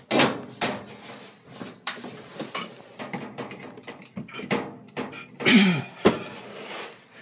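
Knocks, clicks and rustling from handling a washing machine's power cord and plugging it into a wall outlet behind the machine, with a short sound falling in pitch about five and a half seconds in.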